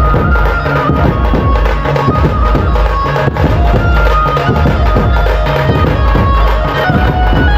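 Loud music with a heavy, driving drum beat under a held, reedy melody line.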